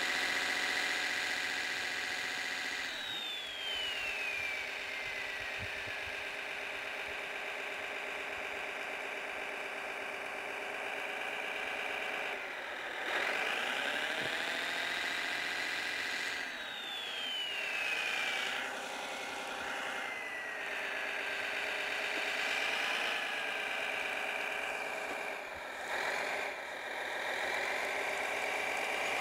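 Electronic engine sound from a Servonaut SMX sound module in a Kyosho Blizzard RC snowcat, running steadily and rising and falling in pitch as the model is driven. It has whines that fall in pitch a few seconds in and again past the middle.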